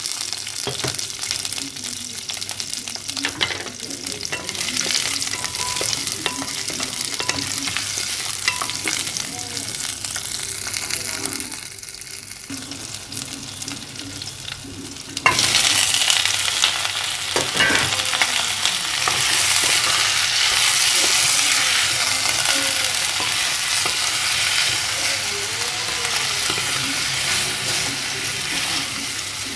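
Whole shallots, garlic cloves and ginger sizzling in hot oil in a clay pot. About fifteen seconds in, raw chicken feet go into the pot and the sizzling turns suddenly louder, with a few knocks of a wooden spatula as they are stirred.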